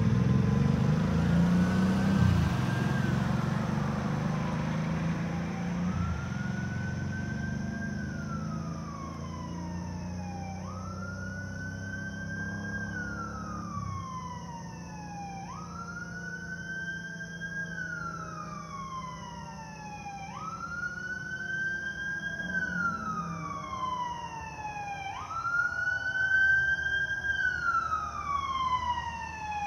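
A fire engine's siren wails up and down about every five seconds, growing louder as the engine approaches. A low rumble close by is loudest at the start and dies away about halfway through.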